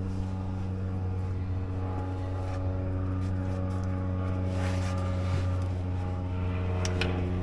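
A machine running steadily with a constant low hum of fixed pitch. A few faint clicks and rustles of work are heard over it.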